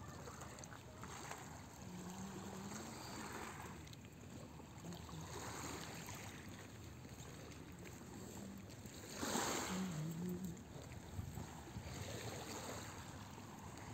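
Small lake waves lapping on a pebble shore, each wash swelling and fading every two to three seconds, the biggest about two-thirds of the way through.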